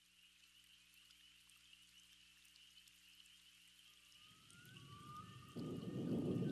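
Opening of an ambient electronic track fading in: a faint high hiss with sparse crackles over soft low drones. A rain-like wash of noise comes in about four seconds in and jumps louder near the end, with a few rising gliding tones above it.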